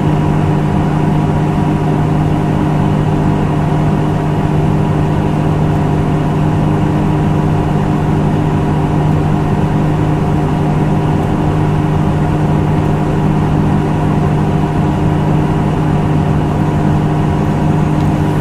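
Engine of a compressed-natural-gas Nissan Diesel UA city bus (KL-UA272KAM modified) running at a steady speed, its hum holding one unchanging pitch.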